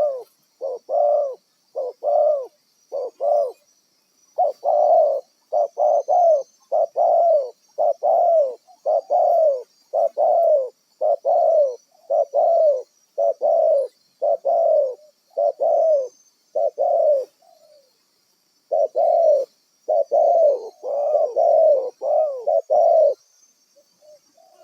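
Spotted dove (tekukur) cooing: a long run of short repeated coos, about two a second, with a brief pause a little past the middle.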